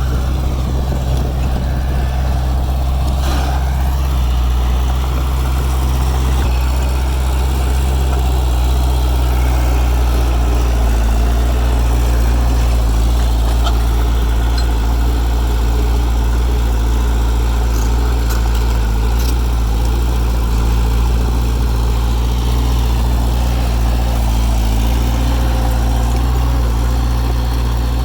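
Heavy diesel engine of earthmoving machinery running steadily at an even speed, a deep constant drone.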